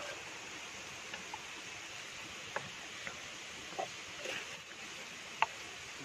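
Steady hiss of flowing water, with a few light clinks and knocks of camp cooking gear being handled. The sharpest clink comes about five seconds in.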